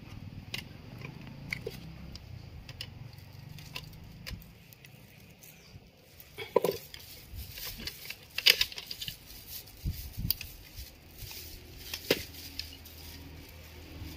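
Scattered clicks and knocks of a digital TV set-top box being taken apart by hand: its plastic case, internal wire connector and circuit board being handled and pulled free, with the sharpest clacks about halfway through.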